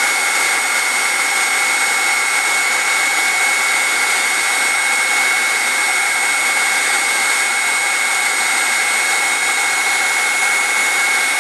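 Handheld electric heat gun running steadily, its fan blowing hot air onto a PEX pipe: an even rush of air with a steady high whine.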